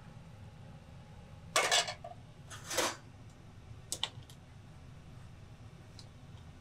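Kitchen clatter: a few short knocks and scrapes of metal pots and utensils, the loudest about one and a half seconds in, over a steady low rumble.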